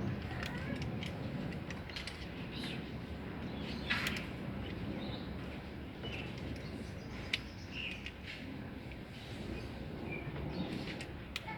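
Scattered clicks, knocks and small creaks of hands working on washing-machine parts while a switch is replaced, over a steady low rumble.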